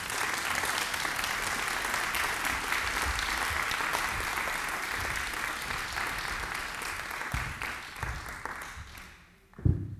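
Audience applauding, the clapping thinning and fading out near the end. A single loud thump comes just before the end.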